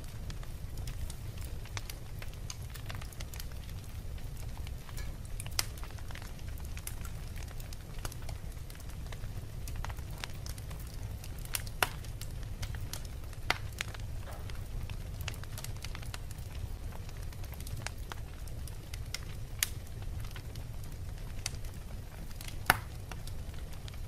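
Wood logs burning in an open fireplace: a steady low rumble of flame with irregular sharp crackles and pops throughout. A few pops are louder than the rest, the loudest about a second before the end.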